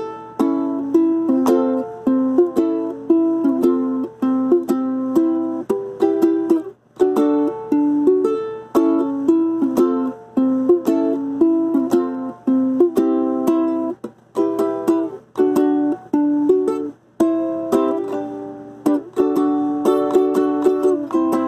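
Ukulele strummed by hand, chords rung out in a steady rhythm, with a few brief breaks where the strumming stops for a moment.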